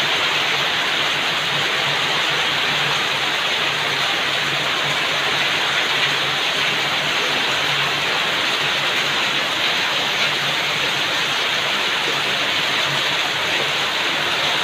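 Heavy rain pouring down steadily, driven by strong wind.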